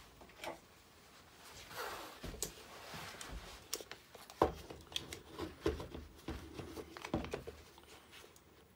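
Handling noise: rustling with a scatter of small clicks and knocks, the sharpest about four and a half seconds in, as a carving gouge and a tape measure are picked up and handled.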